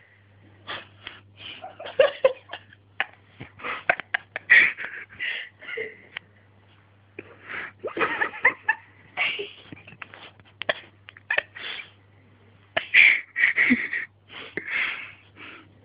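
A man snoring in his sleep: rasping, snorting breaths that come in irregular clusters every few seconds. A steady low hum lies underneath.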